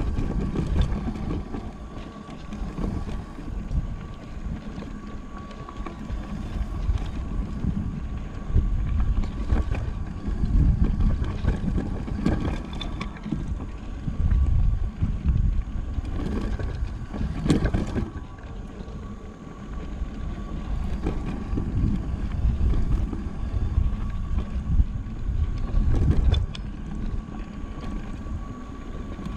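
Wind buffeting the camera microphone and the tyres and frame of a Scott Voltage electric mountain bike rumbling over a dirt forest trail, with a faint steady whine underneath. There are occasional sharp rattles as it hits bumps, the loudest about two-thirds of the way through.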